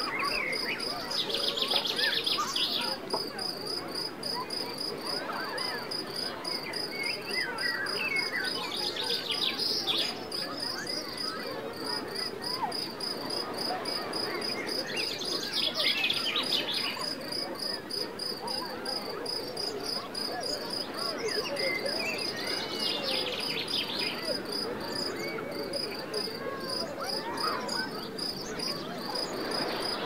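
Crickets chirping in a steady, rapid high-pitched pulse, with a louder buzzing trill coming back about every seven seconds. Beneath them are a constant wash of sea surf and scattered short bird chirps.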